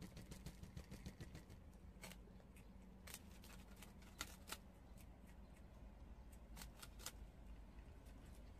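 Prairie dogs nibbling puffed rice cakes: faint, irregular, crisp crunches and crackles of the dry cake. A few sharper crunches stand out among them.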